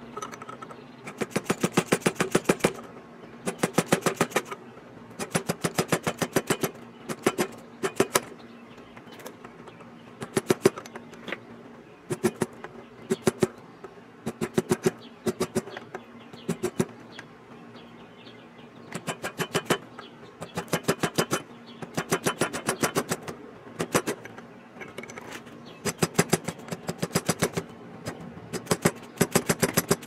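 Light, rapid metal-on-metal hammer taps on a punch, crimping the tabs of a garden tractor ignition switch's steel housing back over its base. The taps come in quick runs of about a second each with short pauses between, over a faint steady hum.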